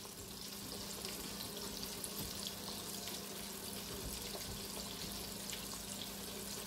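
Chicken pieces deep-frying in hot oil in a pot, a steady crackling sizzle, over a faint steady low hum.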